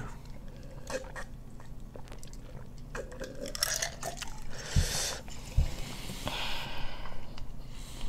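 People gulping ginger ale from glasses, with faint swallowing and mouth sounds. About five seconds in come two dull knocks on the table, then breathy exhales.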